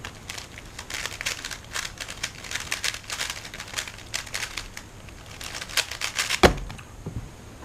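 A 3x3 speedcube being turned very fast: a dense, irregular run of plastic clicking and clacking for about six seconds. It ends with one loud thump as the hands slap down on the timer to stop the solve.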